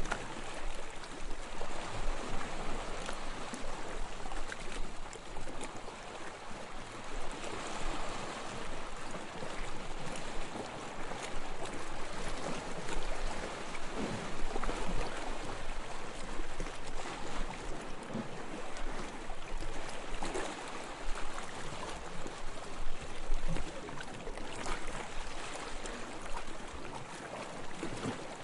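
Sea water lapping and splashing: a steady wash of water noise with many small, irregular splashes.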